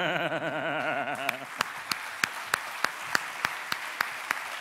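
Audience applause at the end of a talk, with one loud clap keeping a steady beat about three times a second. Over the first second and a half it is overlaid by a single warbling, wavering pitched sound that then stops.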